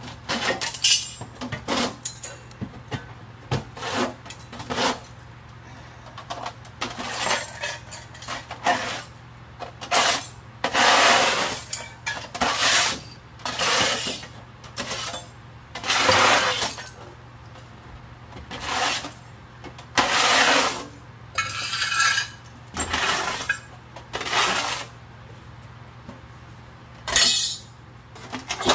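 Small loose metal scrap and screws being gathered up by hand from the floor: a string of separate clinks, clatters and scrapes, most under a second long.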